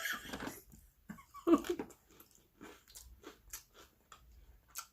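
Biting into and chewing crunchy fried fish: a run of short, sharp crunches and wet chewing clicks.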